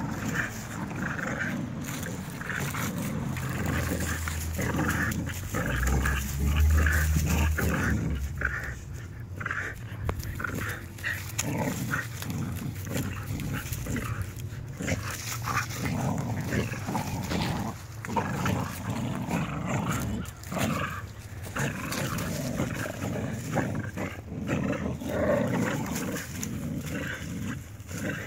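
American Bully dogs playing tug on a spring-pole rope, growling and scuffling over dry leaves and dirt as they yank and shake it. A brief low rumble comes about six seconds in.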